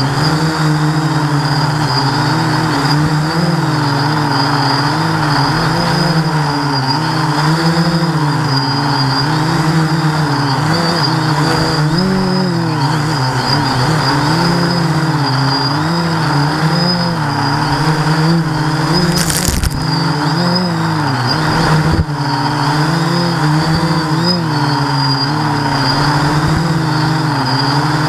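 Quadcopter's electric motors and propellers buzzing, heard close from the onboard camera, the pitch rising and falling constantly with the throttle as it weaves between trees. A brief sharp noise burst comes about 19 seconds in, and a click near 22 seconds.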